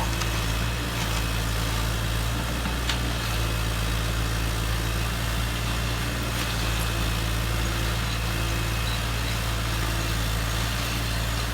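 Steady low engine-idling sound of an RC model construction vehicle, with a faint click about three seconds in.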